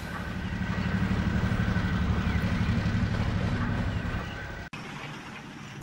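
Diesel shunter engine running with a steady low throb as it hauls two coaches past, dying away about four seconds in.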